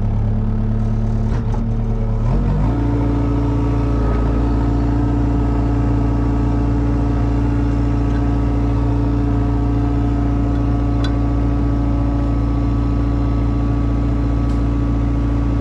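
Mini excavator's diesel engine running steadily, then revving up about two and a half seconds in and holding at the higher speed while the machine takes up tension on a rope tied into a tree.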